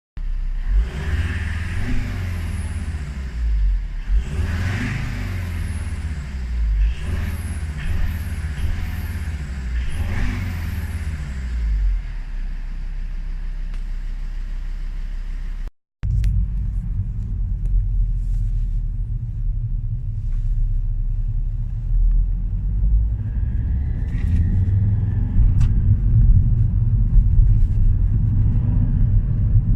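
Volvo V40 D3's five-cylinder turbodiesel revved up and back down several times in the first twelve seconds, then idling steadily. After a cut there is a steady low rumble of the car running, with a faint high whistle for a couple of seconds past the middle. The owner reports a whistle only under strong acceleration, with no fault code and no loss of power.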